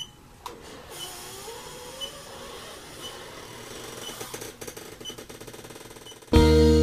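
Electric massage chair running after being switched on from its remote: a motor whir whose pitch glides up and down, turning into a rapid rattling, with a faint high beep about once a second. Loud guitar-and-bass music cuts in near the end.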